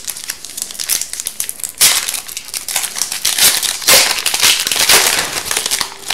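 Shiny foil wrapper of an Upper Deck Series 2 hockey card pack crinkling as it is opened and the cards are pulled out, loudest about two seconds in and again from about three and a half to five seconds.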